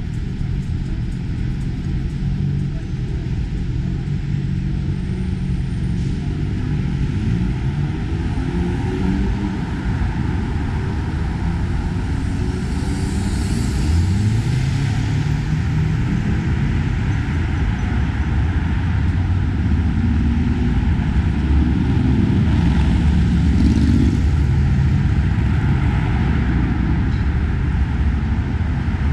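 Busy city street traffic: a steady engine rumble, with vehicles pulling away and their engines rising in pitch about halfway through and again a few seconds later.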